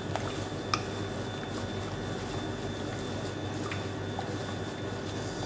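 Plastic-gloved hand squishing chicken pieces through a wet marinade in a glass bowl, with a few small sharp clicks, over a steady background hum.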